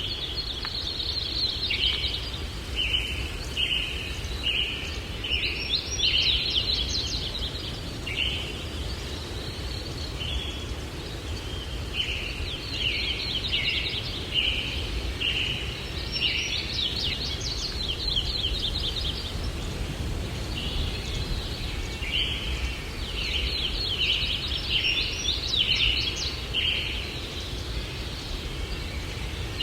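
Songbirds singing in repeated bouts of quick chirping notes, a new phrase every few seconds, over a steady low rumble of breeze.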